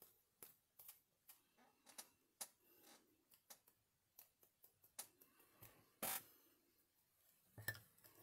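Faint scattered taps and clicks of a large paintbrush being dabbed and worked over a paper tag on a craft mat, with two louder knocks, one about six seconds in and one near the end.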